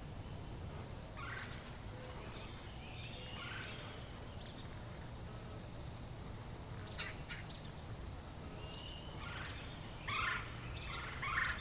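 Birds calling: a scattered series of short calls, the two loudest near the end, over a low, steady background rumble.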